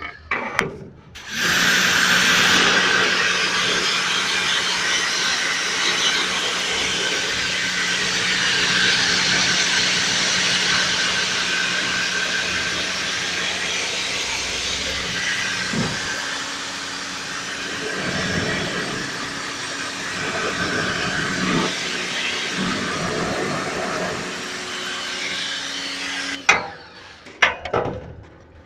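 A small motor-driven machine running steadily, a hum under a loud rushing hiss, of the kind made by the blower or pressure-washer pump used in HVAC servicing. It starts about a second in and cuts off near the end, followed by a few sharp knocks.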